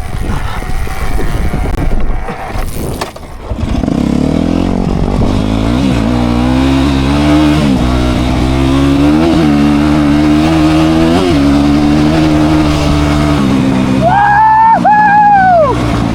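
Dirt bike being roll started: its engine catches about three and a half seconds in and keeps running, with several short blips of throttle, on the last petrol left in the tank. Near the end a high, wavering whoop sounds twice over the engine.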